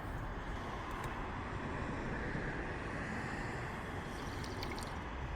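Steady background noise outdoors: a low rumble with hiss, with a few faint clicks about four and a half seconds in.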